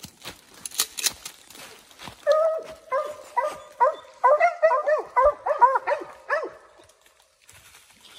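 Dry leaves crunch underfoot for the first couple of seconds. Then a mountain cur barks rapidly, about a dozen short barks in four seconds: treeing barks at a squirrel up a tree.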